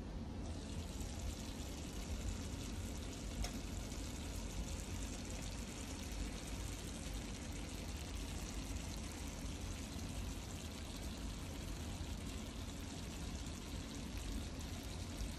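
Fry dumplings (flour dumplings) frying in hot oil in a pot: a steady sizzling hiss full of small crackles.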